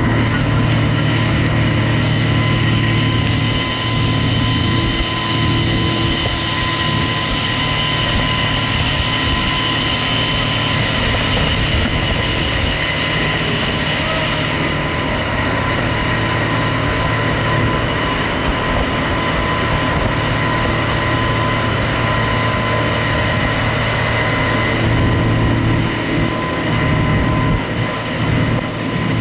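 Boat engine running at a steady speed, a loud even drone that holds one pitch.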